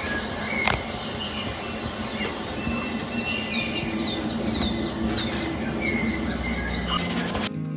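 Nature ambience soundtrack: birds chirping in short repeated calls over a steady rushing hiss, with one sharp click about a second in. Near the end it cuts abruptly to gentle acoustic guitar music.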